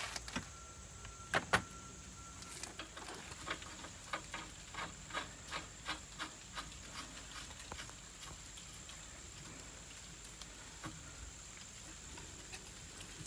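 Short metallic clicks and taps of hand work on fittings in a bus engine compartment: two louder knocks about a second and a half in, then a run of light clicks, about two or three a second, that dies away about halfway through.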